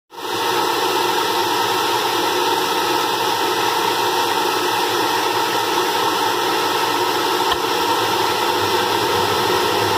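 Corded electric leaf blower running steadily, blowing air into the compressor inlet of a Schwitzer S300 truck turbocharger to spin it up for a homemade turbocharger jet engine start: a loud, even rush of air that comes on right at the start and holds level.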